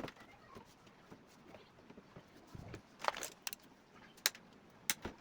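Scattered clicks and knocks of small hard objects being handled, with a short clatter about three seconds in and two sharp single clicks near the end.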